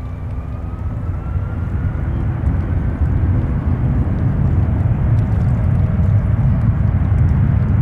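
Airbus A320 jet engines in reverse thrust during the landing rollout: a deep roar that grows steadily louder, with a faint whine rising in pitch over the first two seconds.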